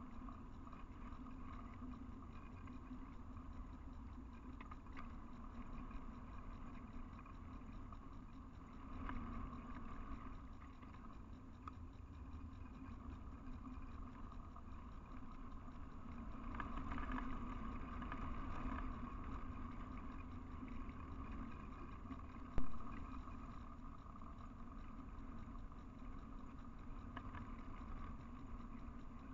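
Steady electronic hum and low rumble of a trail camera's built-in microphone, the same through every clip, with a single sharp click about 22 seconds in.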